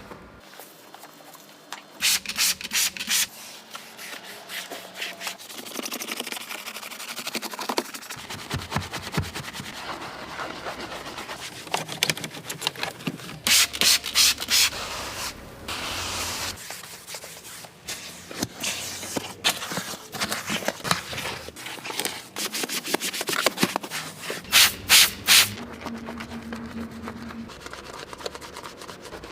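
Continuous scrubbing and rubbing from car detailing work. Three times, a quick run of four or five loud, sharp strokes stands out, roughly eleven seconds apart.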